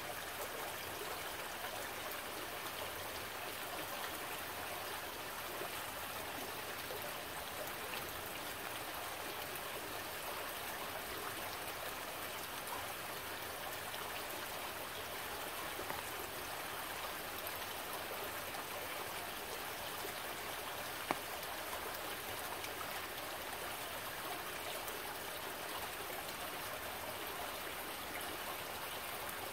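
Shallow stream trickling and splashing over rocks, a steady rush of running water. A single sharp tick cuts through about twenty seconds in.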